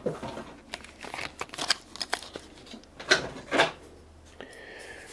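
Stiff clear plastic packaging crinkling and clicking as a small diecast car is worked out of it: a string of short crackles, with two louder snaps about three seconds in.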